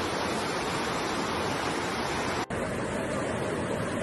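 Floodwater rushing through a street, a steady loud rush of water noise. About two and a half seconds in there is a brief dropout, and after it the rush sounds duller.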